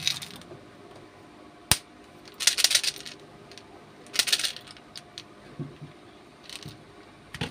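Candy-coated chocolate gems rattling inside a plastic candy tube in three short bursts, the last one fainter, after a single sharp click.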